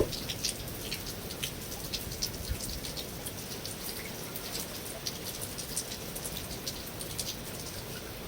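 Steady rain falling, many individual drops landing as sharp ticks over an even hiss, with one louder tick right at the start.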